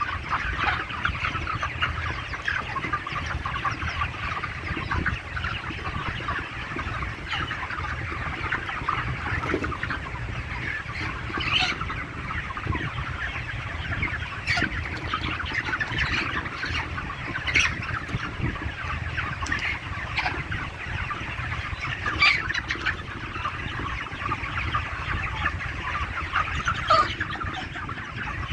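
A large flock of young chickens, about 35 days old, chirping and clucking continuously in a dense overlapping chatter, with a few louder single calls standing out and a steady low hum underneath.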